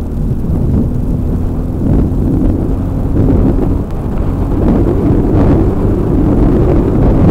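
Yamaha XT 350's single-cylinder four-stroke engine running as the motorcycle rides along the road, mixed with wind buffeting the camera microphone into a loud, steady low rumble.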